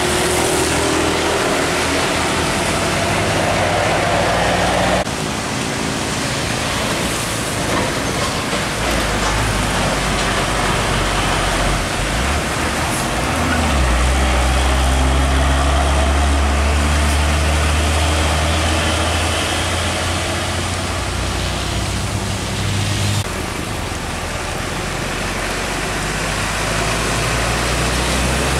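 Heavy diesel trucks passing one after another on a wet road: a deep engine drone with tyre hiss on the wet asphalt, and motorcycles going by. The sound changes suddenly about five seconds in and again about five seconds before the end, and the engine drone is strongest in the middle.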